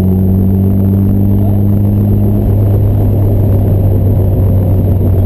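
Fiat 124 Spider 2000's twin-cam four-cylinder engine, breathing through a Weber 34 ADF carburetor and a Stebro exhaust, running steadily under way with road noise; the engine note changes about two and a half seconds in.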